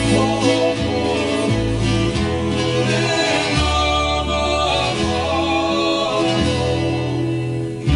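Hawaiian song performed live: a man singing in Hawaiian over plucked acoustic string accompaniment, with a bass line moving note to note.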